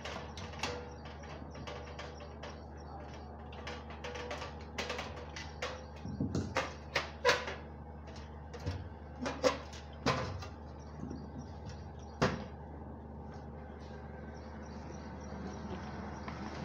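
Aluminium window-frame sections being handled and fitted together on a workbench: scattered clicks and knocks of metal, busiest and loudest in the middle, over a steady low hum.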